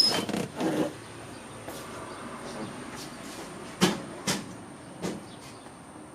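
Scattered clicks and knocks of parts and hand tools being handled during work on a car's shifter linkage, with two sharper knocks about four seconds in.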